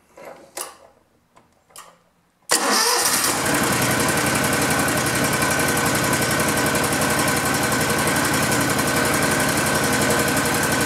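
Riding lawn mower's small engine starting about two and a half seconds in, catching almost at once, then running steadily.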